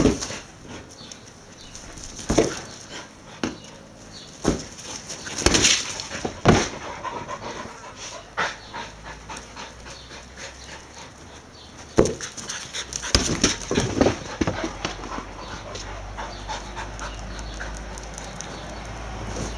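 Kelpie dogs panting, broken by scattered sharp thuds and scuffs.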